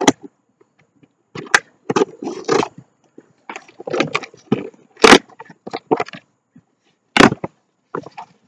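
Packaging handled and opened by hand: irregular crinkling and rustling with several sharp snaps, the loudest about five and seven seconds in.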